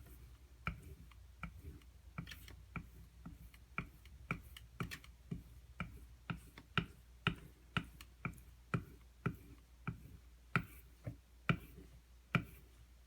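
Knife blade being stroked back and forth on a leather strop loaded with white compound to polish the bevel, giving a train of sharp, light clicks about two a second.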